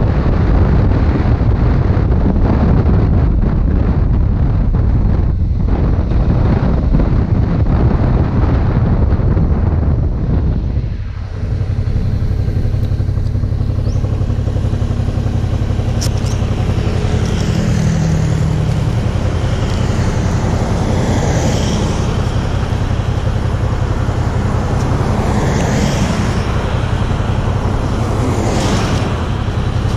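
Motorcycle engine running under wind noise while riding, easing off about eleven seconds in. The engine then settles to a steady idle with the bike stopped, while a few vehicles pass by one after another.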